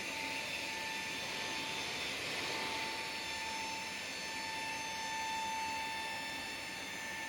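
Steady high machine whine over an even hiss from aircraft machinery running during a Boeing 737NG landing gear test, holding level without change.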